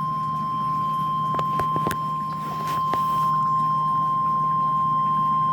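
NOAA Weather Radio 1050 Hz warning alarm tone: one steady, high-pitched tone over a low hum, with a few faint clicks about a second and a half in. This tone signals that a warning message is about to be broadcast.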